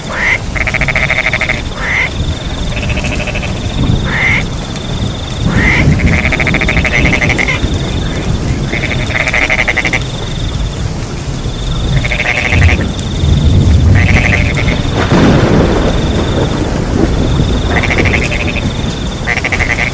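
Frogs calling in repeated pulsed croaks every one to two seconds, over a steady high cricket trill. A low rumble rises around the middle.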